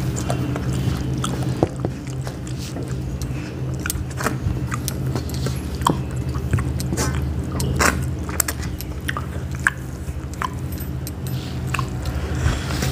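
People eating by hand: chewing and lip smacks, with fingers mixing rice on steel plates giving scattered soft clicks and taps, over a steady low hum.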